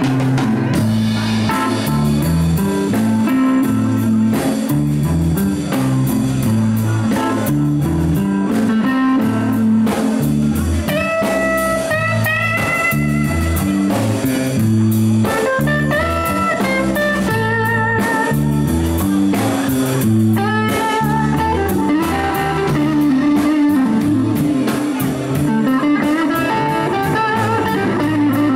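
Live blues band playing an instrumental passage: a Stratocaster-style electric guitar plays lead phrases with bent, wavering notes over a moving bass line and drum kit.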